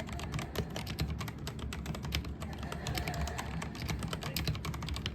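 Computer keyboard typing: rapid, irregular keystrokes clicking several times a second, over a steady low hum.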